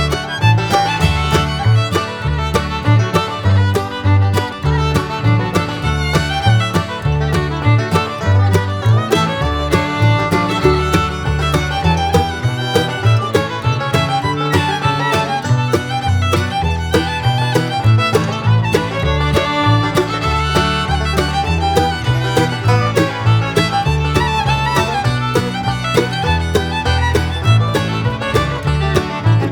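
Upbeat bluegrass music with fiddle, banjo and guitar over a steady bass beat.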